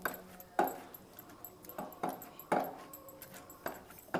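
Hand masher pressing and squelching soft boiled brinjal, tomato and green chillies against the bottom of an aluminium pot, about five short wet strokes at an uneven pace.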